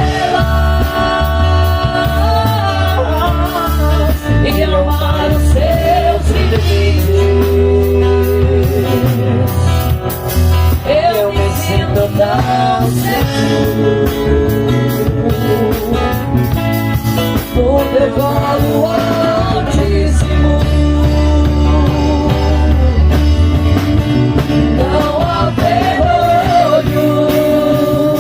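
Live gospel song: a singing voice carrying a melody with long held notes over a band with guitar.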